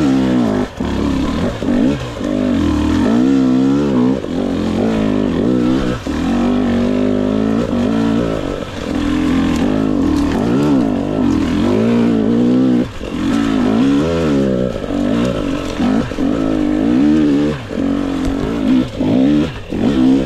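2022 GasGas EX 250 two-stroke dirt bike engine revving up and down again and again as it is ridden, the throttle opened and shut every second or two with brief drops in loudness.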